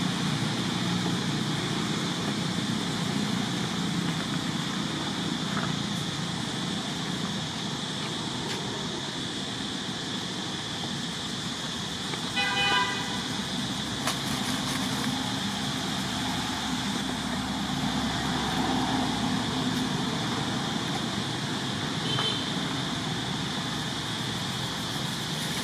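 Steady outdoor background noise, with a short horn-like toot about halfway through.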